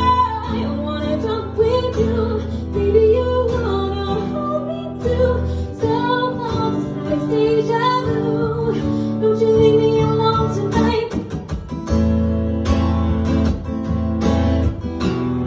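Live solo acoustic performance: a woman singing over her own strummed acoustic guitar. Her voice drops out about eleven seconds in, leaving the guitar strumming alone.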